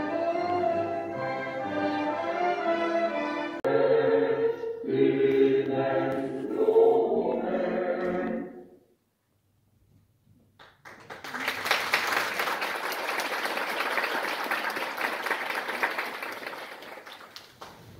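Choir with orchestra, the music fading out about eight seconds in. After a brief hush, audience applause starts and dies away near the end.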